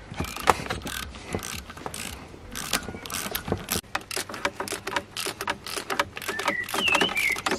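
Socket ratchet clicking in quick runs of strokes as a sensor and bolts are tightened.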